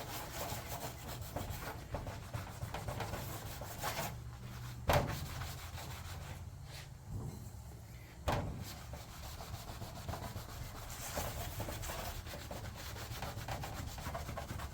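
Small piece of green Scotch-Brite pad scrubbing an aluminum race-car body panel wet with acetone, in quick back-and-forth rubbing strokes, working off tire burns. Two short sharp knocks cut in, about five and eight seconds in, and the scrubbing pauses briefly between them.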